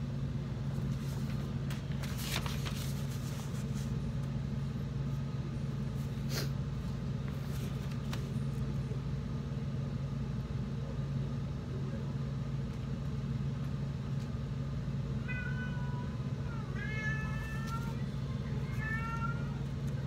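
A steady low hum throughout, with a couple of short sharp crunching or clicking noises in the first third. About three quarters of the way in, an animal starts a run of short, pitched calls, roughly one a second, each bending in pitch.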